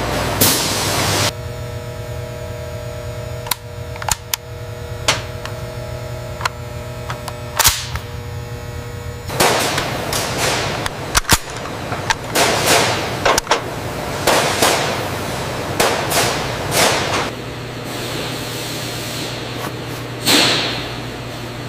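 A string of sharp metallic clicks and clacks, with bursts of sliding and rustling, as an AR-15-style rifle is handled and its parts are worked, over a steady hum.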